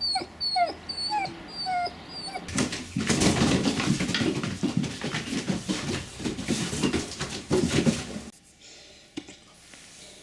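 Irish Wolfhound puppy whimpering in a string of short high yips for the first couple of seconds, then a litter of wolfhound puppies jostling around a cardboard box, a busy mix of scuffling, rustling and mouthing noises that stops suddenly about two seconds before the end.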